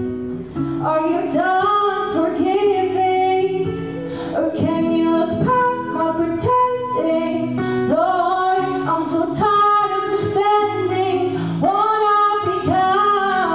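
Female voices singing a song with acoustic guitar accompaniment, performed live by a small vocal ensemble.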